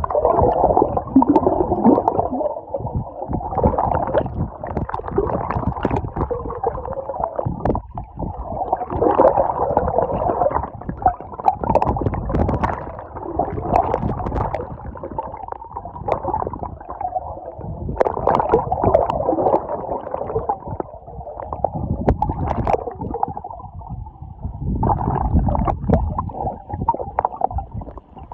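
Muffled, gurgling water noise that swells and fades every couple of seconds, with a few sharp ticks.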